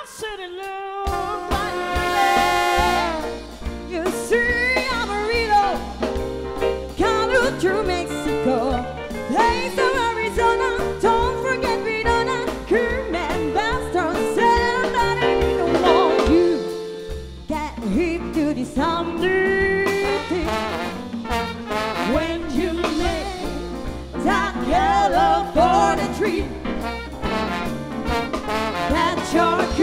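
Live jazz show band playing a swing-style number, with a woman singing lead over a horn section, electric guitar, double bass, drum kit and congas. The band stops briefly just after the start and again about halfway through.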